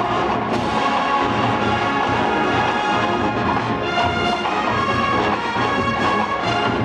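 Marching band playing a Motown medley, with the brass section leading.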